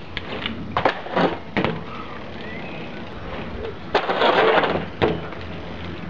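BMX bike being ridden on gravel: a run of sharp knocks and clatters in the first two seconds, then about a second of loud scraping and crunching from about four seconds in, ending in a final knock.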